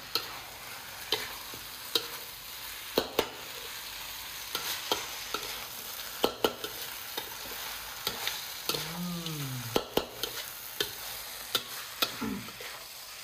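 Chicken fried rice sizzling in a wok as it is stirred and tossed with a metal spatula. The spatula knocks and scrapes against the wok about once a second over a steady sizzle.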